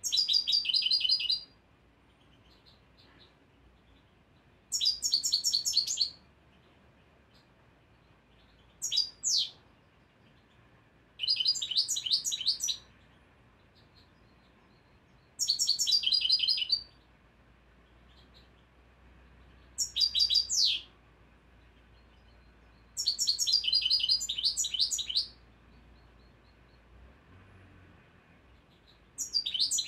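A first-year European goldfinch singing short, high twittering phrases of one to two seconds, about eight in all, with pauses of a few seconds between them. It is a young bird still fixing its song learned from a tape recording.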